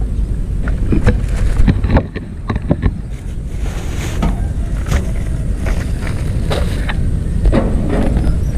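Wind buffeting the action camera's microphone as a steady low rumble, with repeated knocks and rustles of handling as a food container and plastic bags are set down on the dirt.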